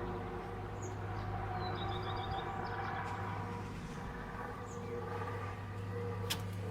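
A steady, low droning hum made of several held tones, the kind of unexplained sky hum reported as a 'strange sound'. Small birds chirp briefly over it, about two seconds in and again near the end, and there is a single sharp click near the end.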